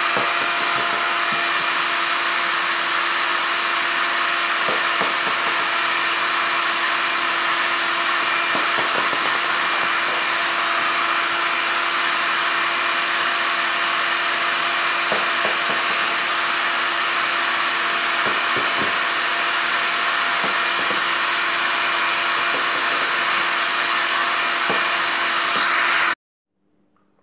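Hair dryer blowing steadily with a steady motor hum and a few faint taps, cutting off abruptly near the end.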